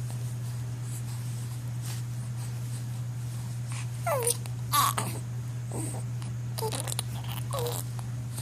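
Baby making four short squeaky sounds, each falling in pitch, over a steady low hum.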